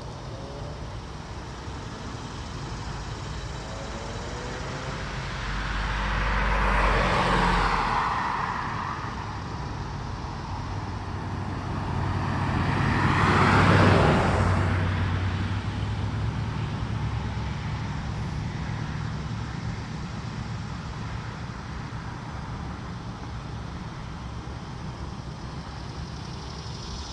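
Two road vehicles passing one after the other, their tyre and engine noise swelling and fading, loudest about 7 and 14 seconds in, over a steady background traffic hum.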